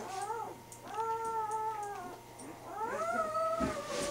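Newborn Great Dane puppy crying: three high, drawn-out cries, a short one first and then two long ones of about a second each that rise, hold and fall away.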